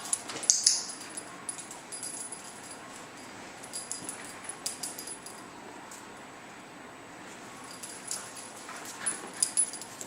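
A puppy whimpering faintly, with short high jingles and clicks as it moves, the sharpest about half a second in and again near the end.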